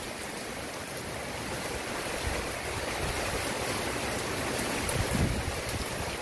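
Heavy rain pouring steadily in strong, gusting wind, with a swell of low rumble about five seconds in.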